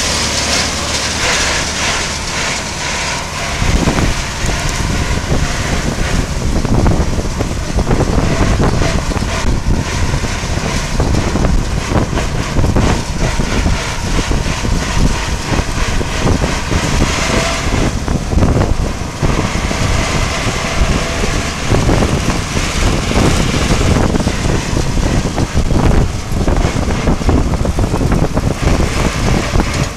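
Old farm tractor engine running steadily at road speed close by, mixed with wind rushing over the microphone of a moving bicycle. The low rumble grows louder about three and a half seconds in.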